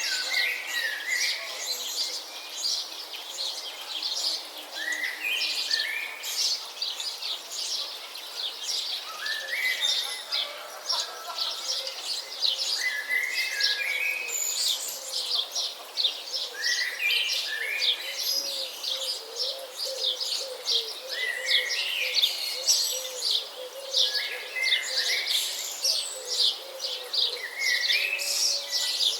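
Several wild songbirds chirping together in a busy, continuous chorus. One bird repeats a short phrase that steps down in pitch every three to four seconds.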